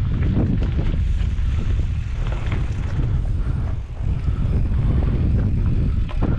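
Wind buffeting the microphone of a camera riding along on a mountain-bike trail ride: a dense, fluctuating low rumble with scattered short rattles and knocks.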